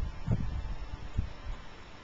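Soft low bumps and rumble on the microphone, the kind of noise wind or handling of the camera makes, over faint background hiss.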